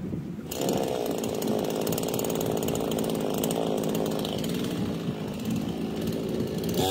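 A two-stroke chainsaw starts about half a second in and idles steadily. Right at the end it revs up sharply.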